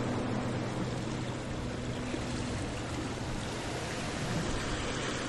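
Steady outdoor rushing noise, the open-air ambience of a riverside city, with the last held notes of background music fading out about halfway through.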